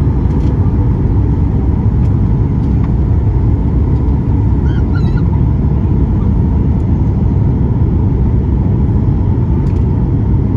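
Steady, loud rumble of airflow and the engines in the cabin of a Boeing 737 MAX 8 on final approach, heard from a window seat over the wing. A brief wavering squeak about five seconds in.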